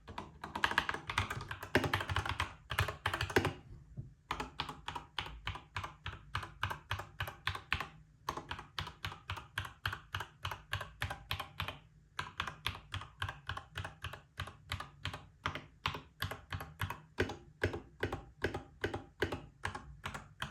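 Typing on a Monsgeek MG75W mechanical keyboard fitted with Akko V3 Pro cream-yellow switches: a steady run of quiet keystrokes without distinct clicks, about three to four a second, with short pauses at about four, eight and twelve seconds in.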